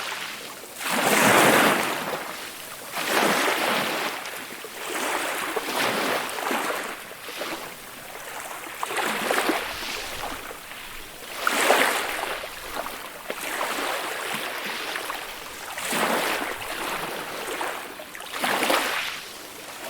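Ocean waves breaking and washing in, about seven surges of rushing noise that swell and fade every two to four seconds.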